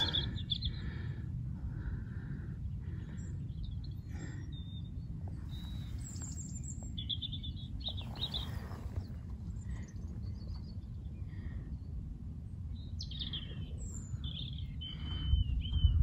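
Wild birds chirping and singing in short, scattered phrases over a steady low rumble.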